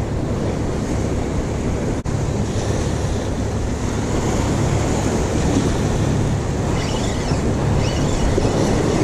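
Ocean surf washing and breaking against rocks, with wind rumbling on the microphone; the sound cuts out for an instant about two seconds in.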